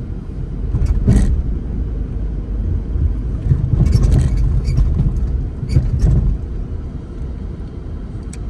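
Car on the move: a steady low road-and-engine rumble, with a few sharp knocks about one, four and six seconds in.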